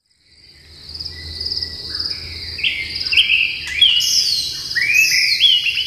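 Insects trilling steadily, with birds chirping in short up-and-down calls that join about two and a half seconds in; the whole fades in from silence.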